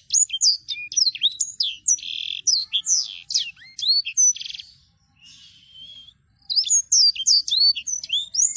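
A 'sanger' songbird singing a fast rolling song of quick, high falling whistles and chirps. The song eases off about five seconds in and breaks into a rapid run of notes again near the end.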